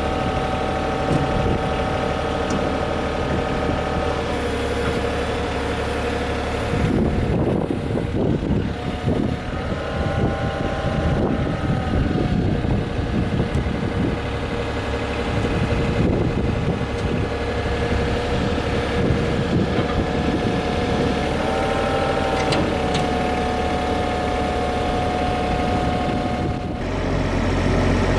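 Komatsu PC10-7 mini excavator's diesel engine running steadily with a whine. The pitch dips briefly about ten seconds in and again past twenty seconds as it takes load, and there is a stretch of rattling noise a few seconds before the first dip.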